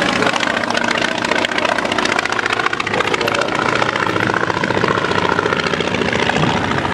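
Polikarpov Po-2 (CSS-13) biplane in flight, its five-cylinder radial engine and propeller giving a steady drone with rapid firing pulses.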